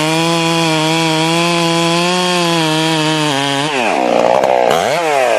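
Stihl MS 661 two-stroke chainsaw with a .404 chain cutting wood at a steady, high engine pitch under load. About three and a half seconds in, the pitch drops sharply as the throttle comes off, rises again in a quick rev and then falls back.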